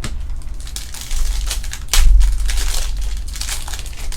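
Crinkling and tearing of a plastic trading-card pack wrapper being ripped open and handled, a dense crackle with many sharp snaps, loudest about two seconds in.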